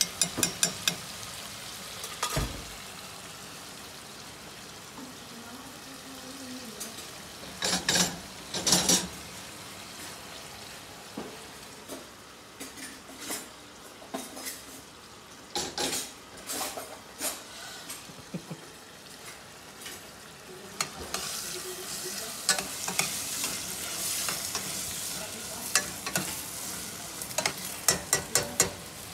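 Chicken pieces frying in a stainless steel pan on a gas hob: a steady sizzle, with a metal spoon scraping and knocking against the pan as it is stirred. Near the end, a quicker run of metal spoon knocks against a steel pot.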